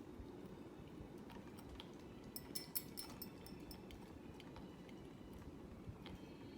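Hampton Bay Huntington III ceiling fan running with a low steady noise and irregular sharp clicks, with a quick run of several clicks a little over two seconds in.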